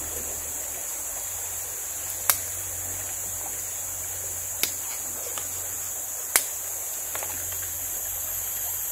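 Steady high-pitched drone of forest insects, broken by three sharp clicks about two seconds apart and a couple of fainter ticks.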